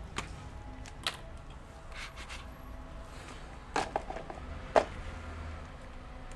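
A few sharp taps and knocks as the bare LCD panel is handled and shifted on the workbench, the loudest about five seconds in.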